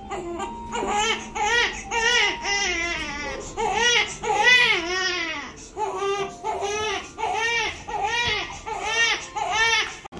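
A baby crying in a run of repeated wails, each rising and falling in pitch, some drawn out and later ones shorter and quicker.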